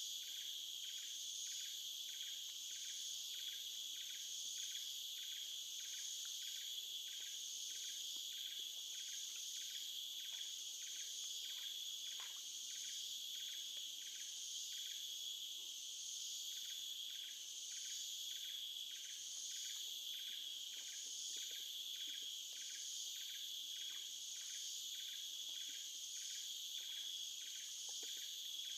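Chorus of insects such as crickets, trilling steadily and high-pitched. Under it, another caller pulses about twice a second, pausing briefly about halfway through.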